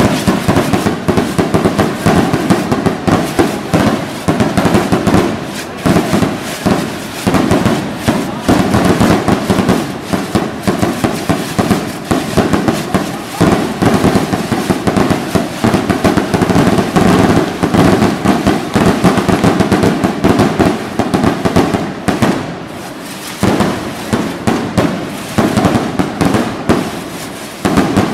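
Fireworks barrage: many rockets and aerial shells going off, a dense, overlapping run of bangs and crackles that thins briefly late on.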